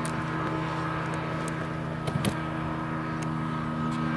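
Outboard motor of a small motorboat running fast on the river, a steady engine hum, with a few faint clicks about two seconds in.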